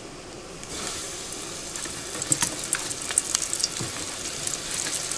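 Floured crucian carp laid into hot oil in a frying pan and sizzling: the sizzle starts just under a second in and goes on, with scattered crackles and pops.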